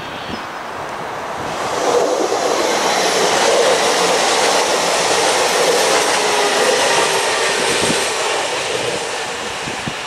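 Regional passenger train passing close by and receding, its wheels running over the rails with a steady tone in the noise; it swells about two seconds in and fades after about eight seconds.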